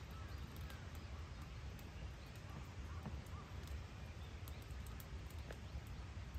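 Outdoor ambience: a steady low rumble with faint bird chirps now and then, and a few light clicks.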